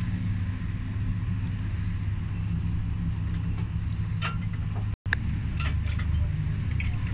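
An engine running steadily as a low drone, with a few light metallic ticks from tools and parts being handled. The sound breaks off for an instant about five seconds in.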